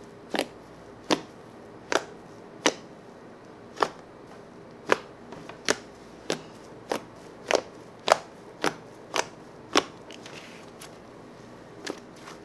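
Fluffy cloud slime of PVA glue and shaving foam being kneaded and folded by hand, giving off sharp pops as air trapped between its layers bursts out, about one or two a second, with a short lull near the end.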